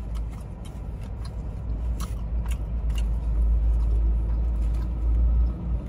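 Low rumble of a car heard from inside the cabin, growing louder about halfway through, with a few light clicks.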